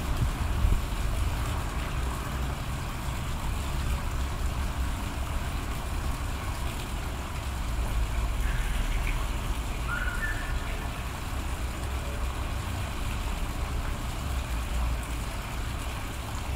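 Steady outdoor background rumble, mostly low and fluctuating, with two faint short chirps a little past the middle.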